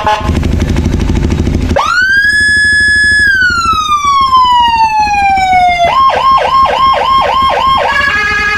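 A 60-watt Whelen siren on a Honda CB150R motorcycle, over the motorcycle's engine running. About two seconds in the siren sweeps up to a high tone, holds it, then slides slowly down in a long wail. About six seconds in it switches to a fast yelp of about four rising pulses a second, then changes to a steadier tone near the end.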